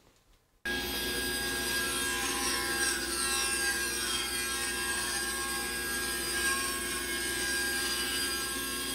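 Table saw running with a board fed through the blade: a steady whine that starts about half a second in.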